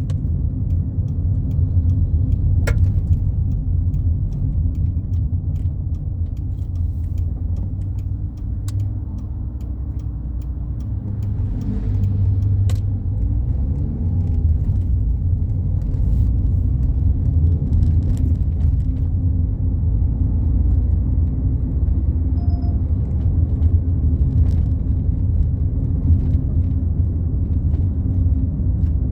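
Fiat Palio Fire at highway speed heard from inside the cabin: a steady low rumble of engine, tyres and road. About halfway through the engine note dips and then climbs again, with a couple of faint sharp clicks.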